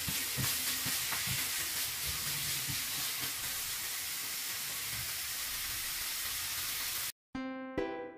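Red bell pepper strips and garlic sizzling steadily in olive oil in a frying pan, with a few light taps and scrapes of a spatula on the pan in the first second or so. Near the end the sizzle cuts off abruptly and plucked-string music begins.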